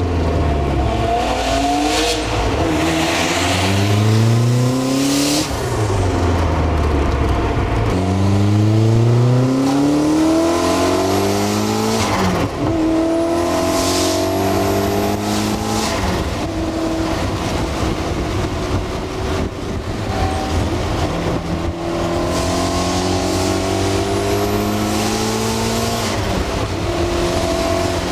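Lotus Esprit V8 Turbo's twin-turbo V8, straight-piped, accelerating hard through the gears, heard from inside the cabin. The engine note climbs in pitch over several pulls and drops back at each upshift, then runs on with gentler rises in the later part.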